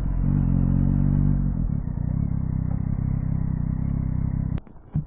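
Yamaha Tracer 9 GT motorcycle engine running steadily at low revs, which cuts off abruptly about four and a half seconds in, followed by a sharp click and a couple of knocks.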